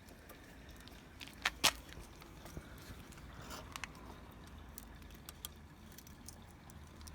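Light clicks and knocks of tools and parts being handled, with two sharp clicks close together about a second and a half in.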